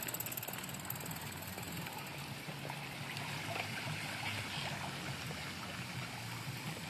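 Bicycle tyres rolling through shallow floodwater, a steady wash of splashing water that is strongest in the middle.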